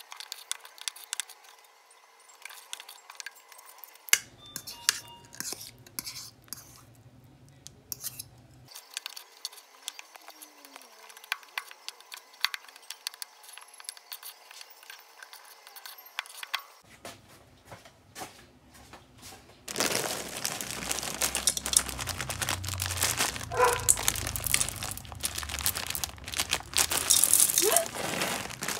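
A metal spoon scrapes and clicks against a stainless steel mixing bowl as cookie dough is stirred. About twenty seconds in, a foil-lined bag of chocolate chips is crinkled and torn open, the loudest part of the sound.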